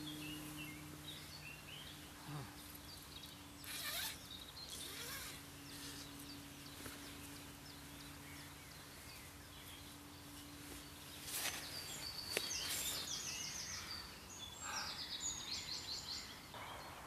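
Wild birds singing and calling: scattered short chirps, then two fast trilled phrases of rapidly repeated notes about two thirds of the way through and again near the end, over a faint steady low hum.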